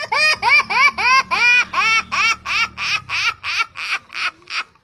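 A person's exaggerated comic sobbing: a rapid run of pitched wailing sobs, about three or four a second, each rising and falling in pitch, growing fainter toward the end.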